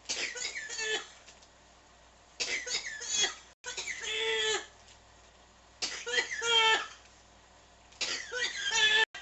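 Someone coughing in repeated fits: about five bouts, each about a second long, separated by short pauses.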